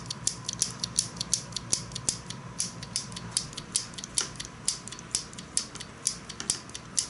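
Clear plastic claw hair clip clicking and clacking as its jaws are snapped and worked, a quick irregular run of sharp plastic clicks, about three to four a second.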